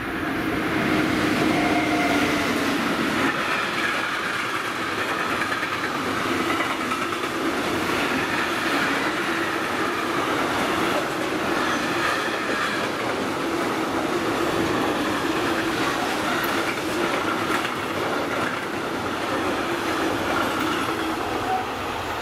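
Freight train of tank-container wagons passing at speed: a continuous rumble and rattle of wheels on the rails with steady ringing tones over it, easing off near the end as the last wagons go by.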